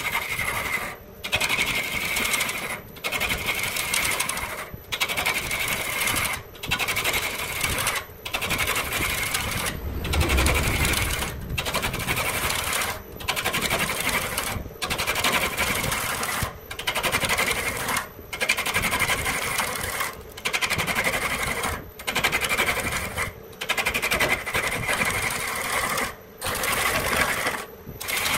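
A hand tool scraping wood in long, regular strokes, each about a second and a half with a brief pause between, some fifteen in all. There is a low thump near the middle.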